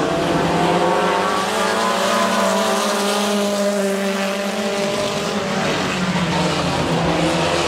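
Dirt-track race car engines running at speed. The engine note climbs a little, then falls away about five seconds in.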